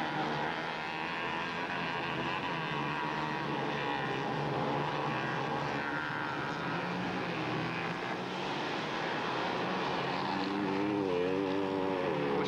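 Mini bike engines running out on a dirt track, a steady mix of engine notes. Near the end one bike comes closer and its engine note wavers up and down.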